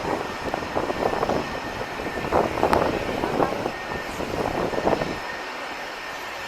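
Airliner engines running with a steady rumble and a faint high whine, mixed with wind gusting on the microphone.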